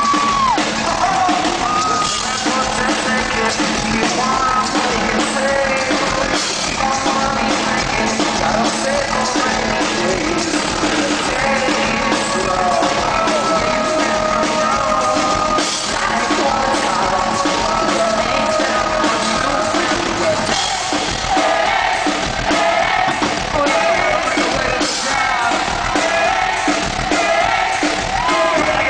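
Live pop-rock band playing loudly: a male lead vocalist sings over drums and synth keyboard.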